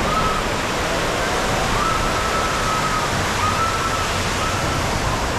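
Steady rushing, splashing water, with faint distant voices calling now and then.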